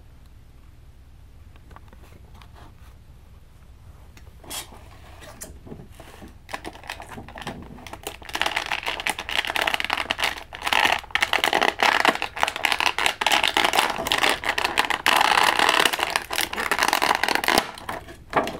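Stiff clear plastic packaging crinkling and crackling as an action figure is pried out of its tray. A few faint clicks come first, then dense, irregular crackling starts about eight seconds in and runs until just before the end.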